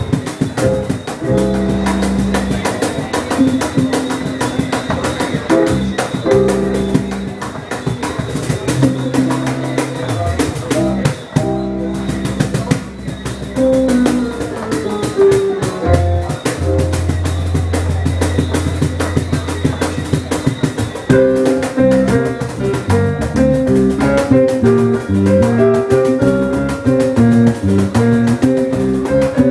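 Jazz trio of cajon, keyboard and electric bass playing live: steady cajon strikes under bass lines and keyboard. A long low note is held in the middle, and the pitched lines become busier and more rapid about two-thirds through.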